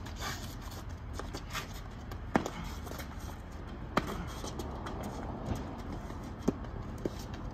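Sneakers on asphalt as a person runs, scuffing, with a few sharp separate taps standing out, over a steady low rumble.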